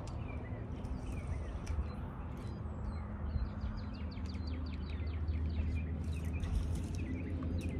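Songbirds chirping, with a fast trill about halfway through, over a steady low hum and outdoor background noise.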